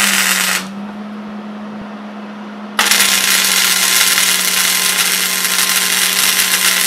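Wire-feed welder arc welding steel: a short crackling tack for the first half-second, then a longer continuous bead starting about three seconds in, with a steady low hum underneath.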